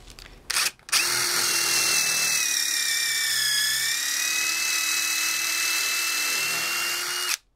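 Cordless DeWalt impact driver spinning a countersink drill bit on a bit extension, drilling into a wooden block. After a short blip, the motor whine runs steadily, dips slightly in pitch as the bit bites into the wood, then cuts off suddenly near the end.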